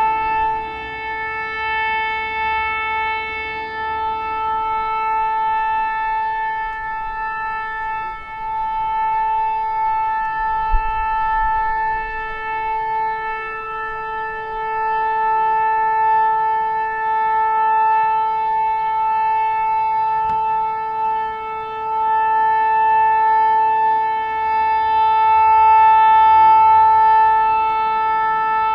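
Civil defense siren sounding a nuclear alarm as one long, steady tone with a rich, reedy set of overtones, swelling slightly louder in the last quarter.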